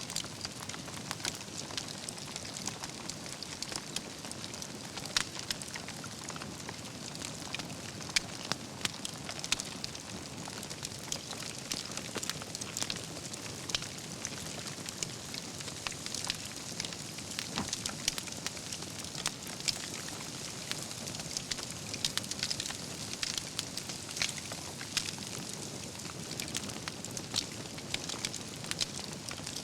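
Wood campfire burning, with a steady hiss and frequent irregular crackles and pops from the burning logs.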